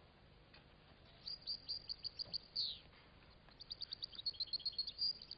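European goldfinch twittering, faint: two runs of quick high chirps, the second longer and busier, with a falling note at the end of the first.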